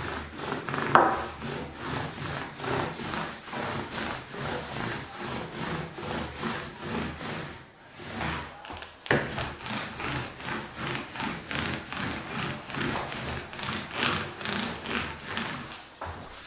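Sandpaper rubbed by hand over a wooden tabletop in steady back-and-forth strokes, about two a second, with a short pause about eight seconds in.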